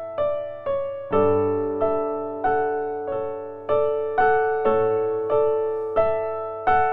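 Background piano music: a slow, gentle melody of single struck notes, about one every half second or so, each ringing out and fading before the next.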